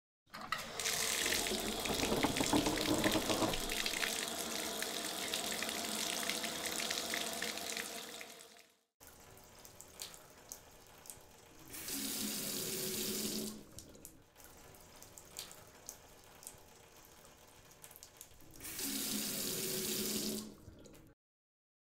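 Water running from a tap, loud for the first eight seconds or so. After a short break it goes on more quietly, with two shorter, louder gushes, the second as water pours from a spout. It cuts off suddenly near the end.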